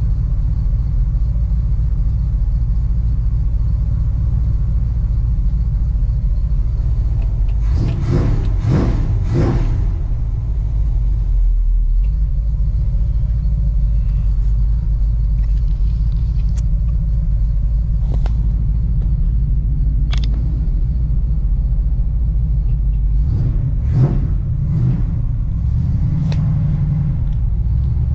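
Chevrolet square-body truck engine idling steadily after a cold start, a low rumble heard from inside the cab. A few short rustles and knocks from handling near the microphone come in a cluster about eight seconds in and again near the end.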